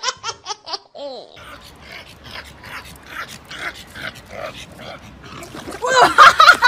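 A person laughing briefly, then a small dog giving excited high yips and whines, loudest near the end.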